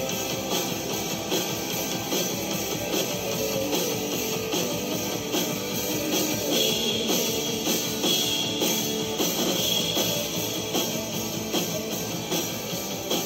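Rock band playing live: distorted electric guitars over a drum kit keeping a steady beat.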